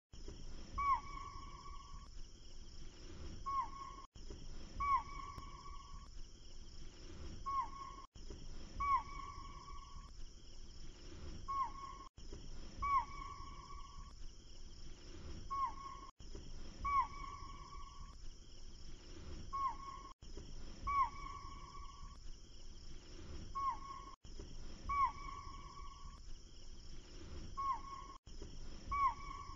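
A call-like sound looping every four seconds: a quick downward swoop into a held whistled note, then a shorter swoop and note, over a steady hiss. Each repeat is identical and has a brief dropout at the join, the mark of a looped audio track.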